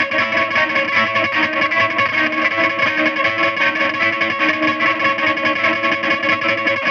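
Fender Jazzmaster electric guitar played through Red Panda Particle and Tensor, EAE Halberd and Fairfield Circuitry Shallow Water pedals into a Fender Vibrolux Reverb amp: a dense, sustained noisy drone with steady held pitches, its loudness pulsing evenly several times a second.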